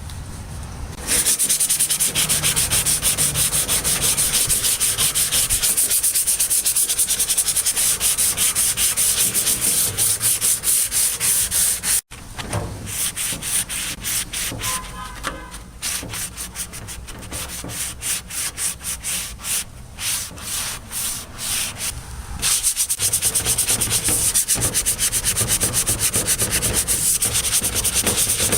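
Sanding on the old Craftsman tool chest in quick, rapid, repeated strokes. It is loud for the first ten seconds or so, stops briefly, goes on more softly, and grows loud again near the end.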